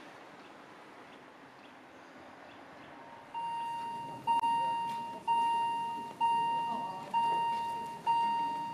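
Level-crossing warning bell starting about three seconds in, ringing about once a second. Each ding is a clear bell tone that fades before the next. It is the warning that a train is approaching and the barriers are about to come down.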